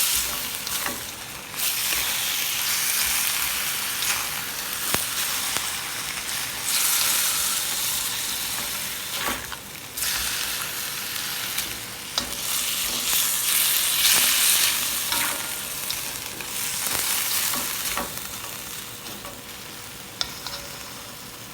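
Chicken pieces sizzling in hot oil and black soy sauce while being stirred, with the spatula clicking and scraping against the pan now and then. The sizzle dies down over the last few seconds.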